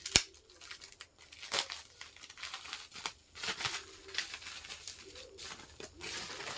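Crinkling and rustling of a thin plastic packet holding a fishing jig being handled and opened, a string of irregular crackles with a sharp click just after the start.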